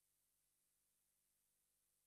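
Near silence: the sound drops out between sentences of a sermon, leaving only a very faint electrical hum.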